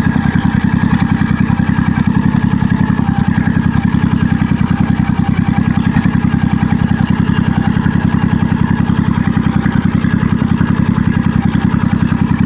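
Honda Shadow 1100 V-twin engine idling through Cobra drag pipes: a steady, loud, even pulsing exhaust note.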